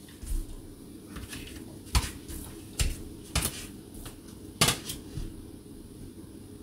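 Tarot cards being shuffled and laid down by hand: several short, sharp clicks and taps, roughly a second apart.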